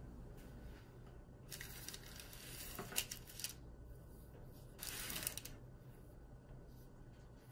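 Metal offset spatula scraping under baked cookies on a parchment-lined baking sheet, three brief scrapes, the middle one with a sharp click about three seconds in.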